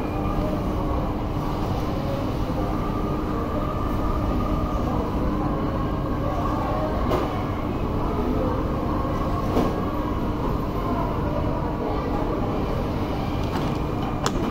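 Steady machine noise: a low, even rumble with a constant hum through it, and a few faint clicks.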